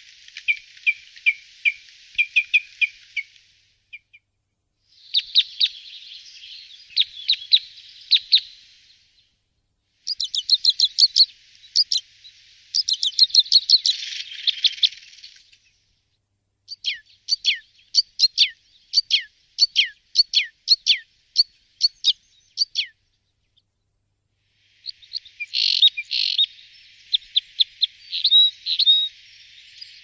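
Two-barred crossbills calling: runs of short, sharp chirps, many dropping in pitch, some quick-fire and some about two a second, in separate bursts broken by short pauses.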